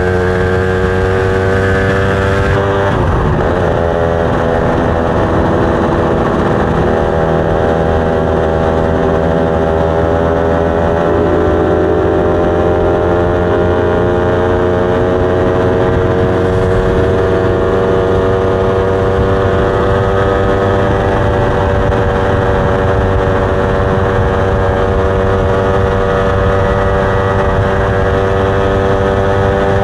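Motorcycle engine running under way, its note dipping briefly about three seconds in and then rising slowly as the bike gains speed.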